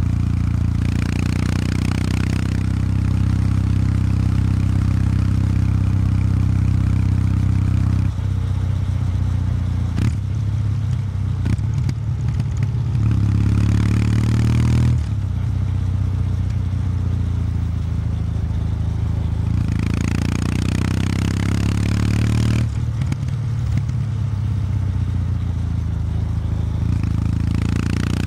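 Kawasaki W800 Street's air-cooled 773 cc parallel-twin running through its stock exhaust while being ridden at low revs, around 2,000 rpm: a steady, deep exhaust note whose tone steps up or down a few times, with a few stretches of added higher rushing noise.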